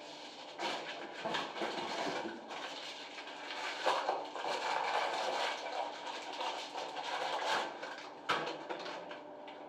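Irregular rustling from a white wrapped item or cloth being handled and worked in the hands, with a single sharp click about eight seconds in.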